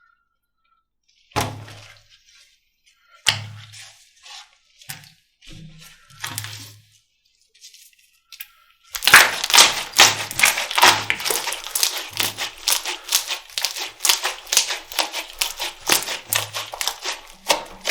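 Slime being handled: a few separate squishy thuds as it is pressed and slapped, then from about halfway a dense, rapid crackling and popping as it is squeezed.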